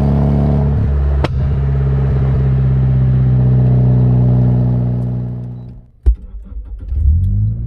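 Nissan S14 engine idling steadily through a new ARC titanium 3-inch exhaust. About six seconds in, the sound fades away and one sharp knock is heard, then the idle comes back near the end.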